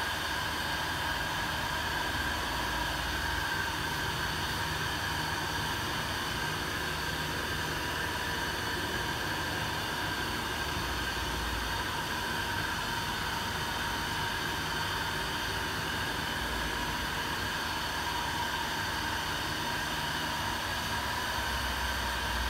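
Steady machine noise: an even hiss with a few steady whining tones running through it.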